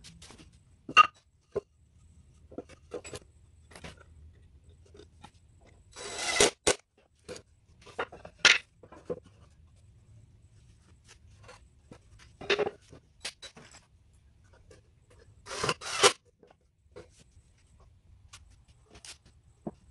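Wooden pine boards of a plant stand being handled and set down on a concrete floor: scattered sharp knocks and clicks, with two longer scraping sounds, about six seconds in and again near sixteen seconds.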